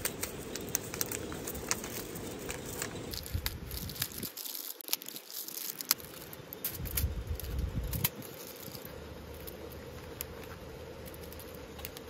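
Aluminium foil and snack packaging crinkling and rustling as they are handled, with many small sharp clicks.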